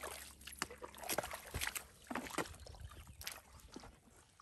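Wet tidal mud squelching and shallow water sloshing as hands dig into the mud and bare feet shift in it. The sound is a run of irregular short wet clicks and splashes.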